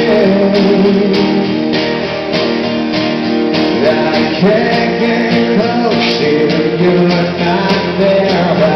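Live acoustic duo playing a slow pop-rock ballad: two acoustic guitars, with a male voice singing over them.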